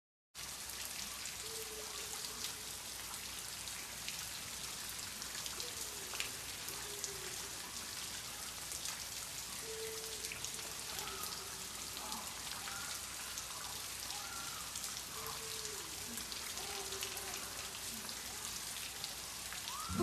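Steady rain, an even hiss with scattered drop ticks, with faint short sliding tones now and then over it.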